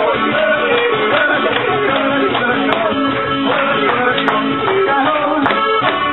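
Live band playing volkstümliche (Alpine folk-pop) music with a steady beat.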